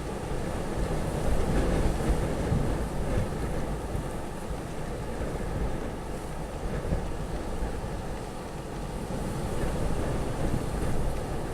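Storm-force wind of windstorm Friederike blowing in gusts, buffeting the microphone with a deep rumble that swells about a second in and again near the end.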